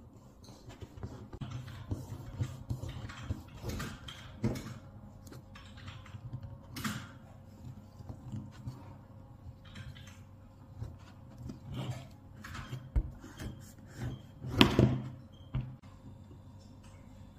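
A knife sawing through the crust of a dark loaf on a plastic cutting board, in short irregular scraping strokes, then butter being scraped onto the slices. A louder knock near the end.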